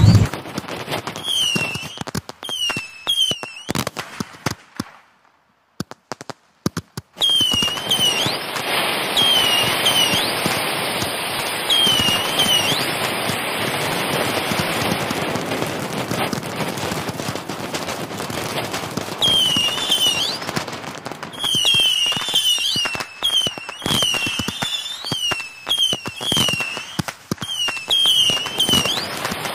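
Aerial fireworks display bursting and crackling: a dense, continuous run of pops and crackles over a steady rushing hiss, with a brief silent gap about five seconds in.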